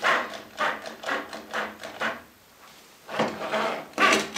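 A wood screw being turned into a wooden board, making short grinding creaks as its threads bite into the wood, about two a second, with a pause a little after two seconds in before three more turns.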